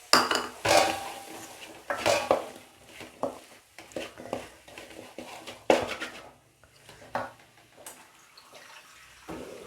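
A metal spoon clanking and scraping against a metal kadai in irregular strokes as drumstick pieces are stirred into the masala. The louder clanks ring briefly.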